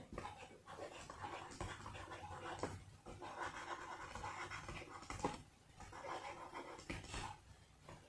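Faint scratching of a stylus writing on a tablet screen, with a few light clicks of the pen tip.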